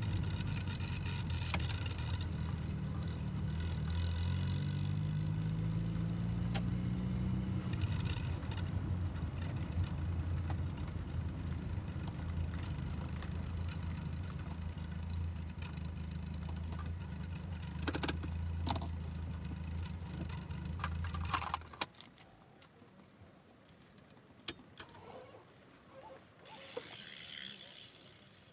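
1984 Volkswagen Golf Mk2 GL's carburetted four-cylinder engine idling, its pitch briefly rising about four seconds in, then switched off a little over twenty seconds in. After it stops, a few sharp clicks and, near the end, a passing bicycle's freehub ticking briefly.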